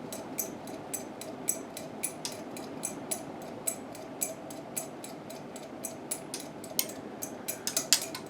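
Casablanca Four Seasons Slumber Quiet ceiling fan running near high speed with a steady motor hum, under a regular light metallic ticking about twice a second: the pull chain rattling as the fan wobbles badly. Near the end the ticks come faster and louder as the wobble knocks against the blades.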